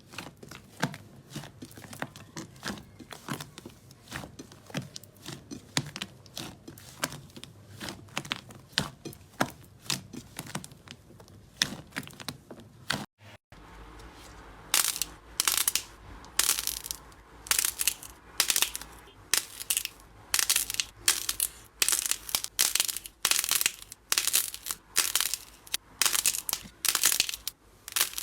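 Slime being squeezed and pressed by hand. For about the first half it gives dense, small crackling pops. After a brief break it gives louder crisp crunches, about two a second.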